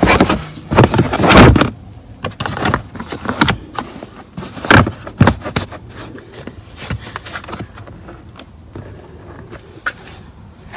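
OEDRO rubbery all-weather floor mat being pushed, shifted and pressed into a car's footwell: scraping and knocking against the floor and trim, loudest in the first second and a half, with a sharp knock about five seconds in, then softer handling.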